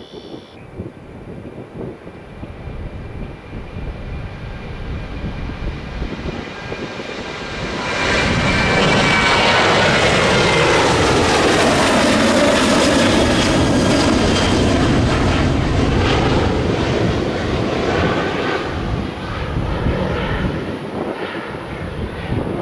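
Boeing 737 jet airliner taking off at full thrust. The engine noise builds during the takeoff roll and is loudest from about eight seconds in as the plane climbs past, with whining tones that glide down in pitch. It then eases off as the jet climbs away.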